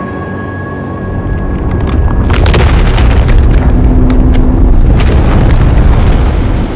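Cinematic boom effect in the show's soundtrack: a deep rumble swells up about a second in and holds loud, with crackling hits in the middle, over fading synth tones, then cuts off suddenly near the end.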